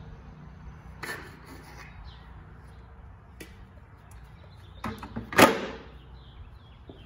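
Plastic grit guard dropped into an empty five-gallon plastic wash bucket, landing on the bottom with one loud hollow clatter about five seconds in. Lighter plastic clicks and knocks come before it as the guard is handled.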